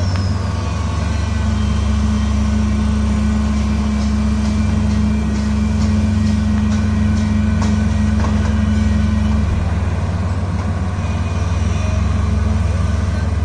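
Excavator's diesel engine running steadily with a low drone; a higher steady hum joins it about a second and a half in and drops out around nine seconds in.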